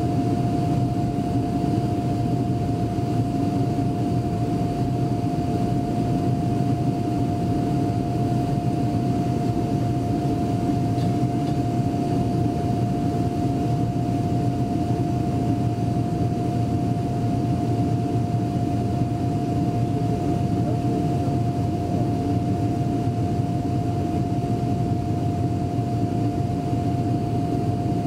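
Avro RJ100 jet airliner heard from inside the cabin beside the wing during the climb after takeoff: the turbofan engines and the air rushing past make a steady, unchanging roar, with one high whine held over it.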